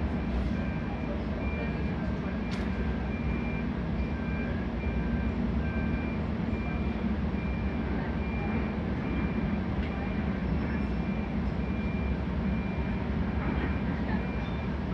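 Engine of a caisson drilling rig running steadily while the bit is lined up and installed, with a backup alarm beeping repeatedly over it.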